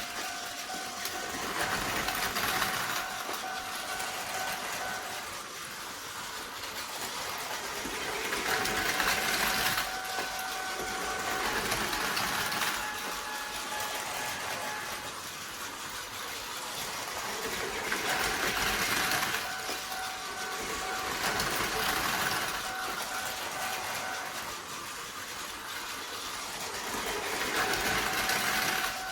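Two battery-powered Tomy Plarail toy trains running on plastic track: a steady small-motor whine with the rattle of plastic wheels, swelling louder about every nine seconds as they come round the loop.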